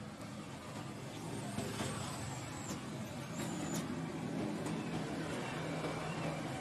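Motor vehicle engine running, a steady low hum that grows a little louder, with a few faint high squeaks about two to four seconds in.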